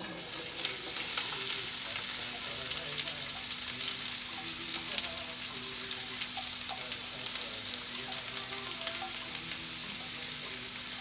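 Chopped onions sizzling in hot olive oil, the sizzle starting suddenly as they hit the pan and keeping on steadily. Short clicks and scrapes from a silicone spatula scraping the onions out of a steel bowl.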